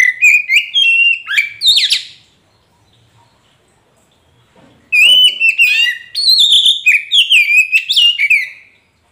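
Oriental magpie-robin (kacer poci) singing loud, quick runs of whistled notes in two phrases. The first lasts about two seconds; the second starts about five seconds in and runs for over three seconds.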